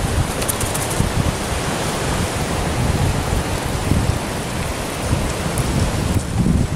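Sea surf washing against rocks, a steady rushing noise, with wind buffeting the microphone in low gusts.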